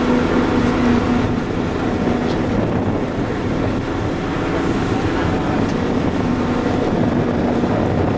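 Diesel engine of an excavator running steadily at a low, even speed, with a constant engine hum.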